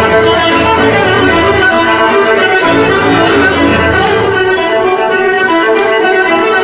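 Bulgarian folk dance music led by a fiddle, playing steadily and loudly.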